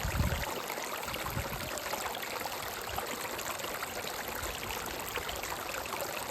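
Shallow stream running over rocks: a steady rushing and splashing, with a few low bumps in the first two seconds.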